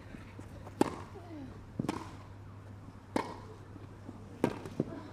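A tennis rally: the ball struck by racquets four times, about a second and a quarter apart, with a lighter knock near the end. A short falling vocal sound, like a player's grunt, follows some of the strokes.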